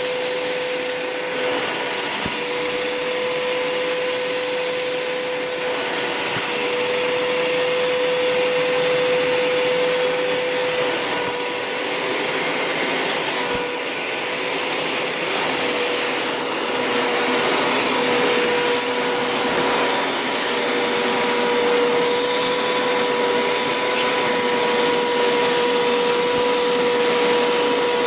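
Hoover Power Scrub Deluxe carpet cleaner running steadily with a constant motor whine and suction hiss, its upholstery tool being scrubbed back and forth over the couch fabric.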